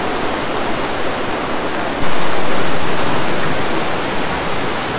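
Steady rush of a fast-flowing mountain stream, which steps up louder about two seconds in.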